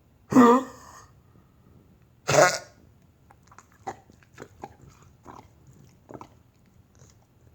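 A dog giving harsh hacking coughs: two loud hacks in the first three seconds, followed by a string of quieter clicks and smacks.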